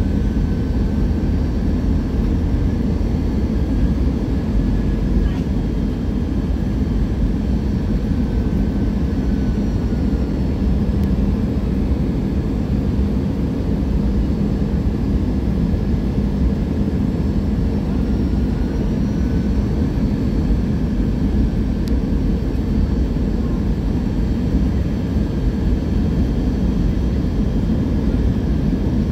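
Steady noise of jet engines and rushing air heard inside an Airbus A320's passenger cabin on final approach, a deep rumble with a faint steady whine above it.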